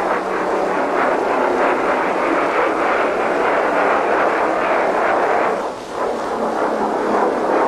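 Jet aircraft in flight, a steady rushing engine noise that dips briefly about six seconds in.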